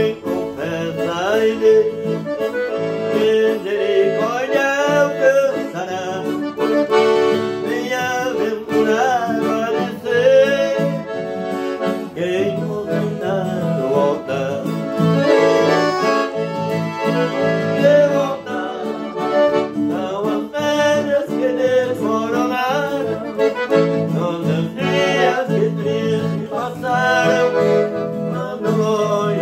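Piano accordion and acoustic guitar playing a hymn together, with a man singing over them.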